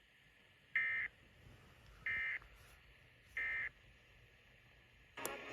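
NOAA Weather Radio EAS end-of-message data bursts: three short, identical digital screeches about 1.3 s apart, closing the severe thunderstorm warning. A louder, noisy sound starts near the end.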